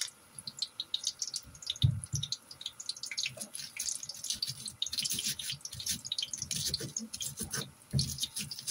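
A stone pestle pounding and grinding raw shallots, garlic, ginger and coarse salt in a stone cobek mortar: irregular wet crunching and stone-on-stone tapping. There is a heavier thump about two seconds in and another near the end.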